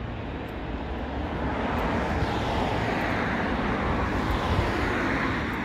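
Rushing noise of a passing vehicle that swells about a second and a half in, holds for a few seconds and eases off near the end.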